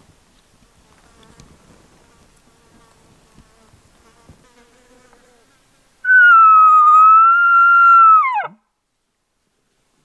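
A hunter's elk bugle call blown through a bugle tube, imitating a bull elk's bugle. It is one loud, high whistle that wavers slightly for about two and a half seconds, then falls steeply to a low note and stops. It starts a little past halfway through, after faint rustling.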